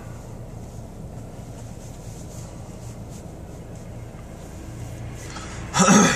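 Steady low hum of a car running, heard from inside the cabin. Right at the end comes one short, loud burst of the man's voice.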